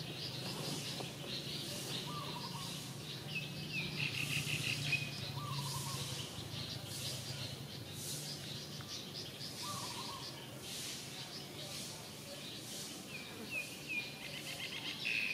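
Outdoor ambience of birds chirping and calling, with quick trilled phrases twice and a few lower short calls, over a high insect buzz that pulses about once a second and a steady low hum.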